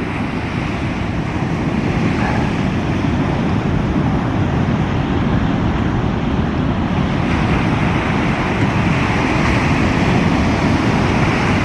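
Ocean surf breaking and washing in, with wind rumbling on the microphone: a steady noise that grows a little louder in the second half.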